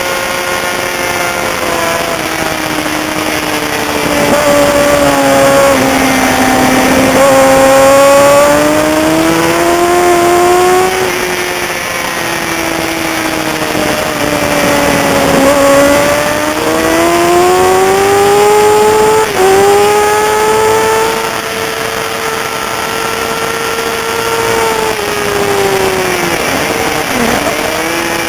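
A race motorcycle engine running hard at racing speed, its pitch climbing as it accelerates and dropping back as it slows for corners. There is a brief break in the sound about two-thirds of the way through, and the pitch drops sharply near the end.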